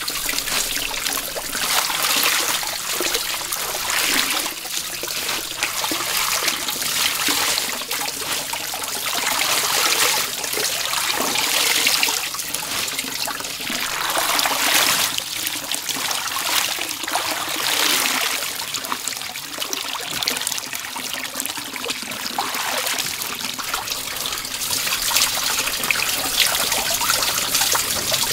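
Water running and splashing in a steady rush that swells and eases irregularly.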